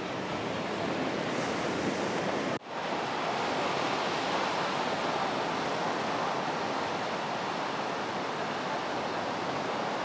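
Sea surf breaking and washing on a sandy beach, a steady rushing wash, broken by a brief gap about two and a half seconds in.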